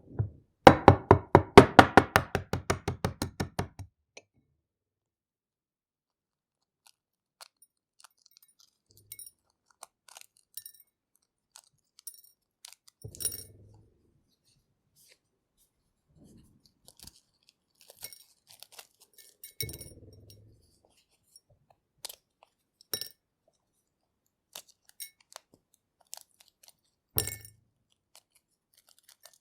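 Boiled egg tapped rapidly against the rim of a glass bowl, about eight taps a second for some three seconds, cracking the shell. Then the shell is peeled off: scattered small crackles with a few louder crunches about a third of the way in, two-thirds of the way in, and near the end.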